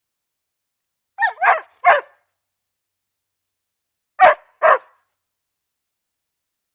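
A dog barking: three quick barks about a second in, then two more about three seconds later, with dead silence between.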